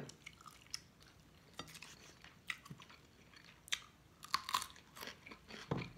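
Close-miked eating: chewing with scattered sharp crunches, and a cluster of crisp crunches a little past the middle as a whole Persian cucumber is bitten into and chewed.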